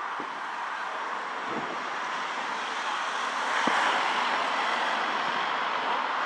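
Street traffic noise: a steady hum of passing vehicles that swells a little about halfway through, with a few faint low thumps.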